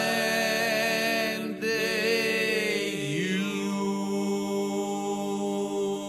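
Voices holding long notes together in harmony over a steady low drone. About three seconds in, the lowest voice slides down and back up.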